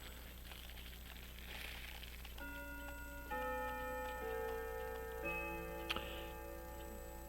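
A chiming clock sounding four ringing notes about a second apart, each note held on under the next. A sharp click comes near the end.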